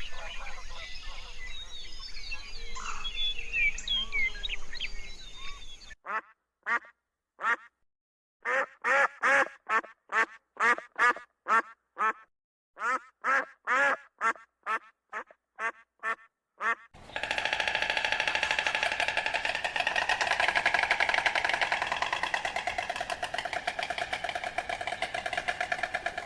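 Small birds chirping, then a duck quacking about twenty times in short separate calls, then a dense, continuous din for the last nine seconds or so.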